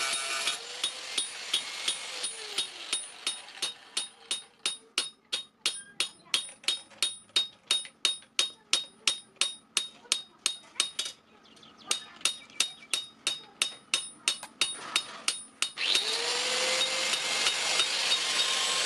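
Hammer blows on steel from a car clutch plate, being forged into a knife, struck in a steady rhythm of about three a second with a metallic ring, with a short pause a little past halfway. Near the end the hammering stops and a motor-driven machine starts up with a rising whine, then runs steadily.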